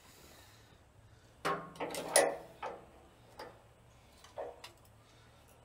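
Metal hand tools clanking and clicking against engine parts during water pump replacement: a cluster of clanks about a second and a half in, the loudest near two seconds, then a few lighter single clicks.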